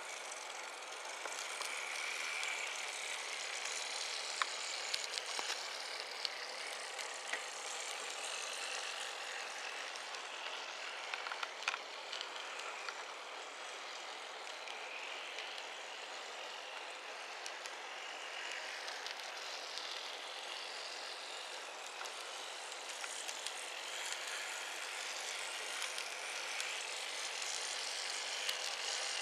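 N-gauge model tram (Tomytec Hankai Mo161-class) running on the layout track: a steady small-motor whir and wheel hiss, with a few light clicks.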